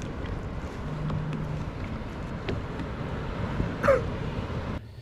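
Steady low rumble with wind noise on the microphone, and a short gliding chirp about four seconds in. The sound cuts off abruptly near the end.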